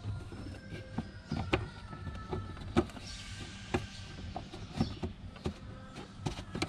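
Irregular clicks and knocks of hands working the BMW E36 fuel sender's rubber seal and plastic locking ring back into the fuel tank opening.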